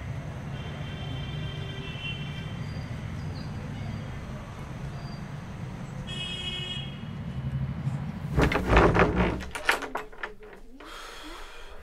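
A wooden door being pushed open, a quick cluster of knocks and rattles about eight seconds in, over a steady low background rumble.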